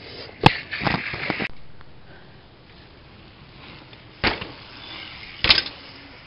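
BMX bike jump: sharp knocks and a short rattle from the bike's frame, chain and tyres, the loudest a double knock near the end as the wheels hit the ground.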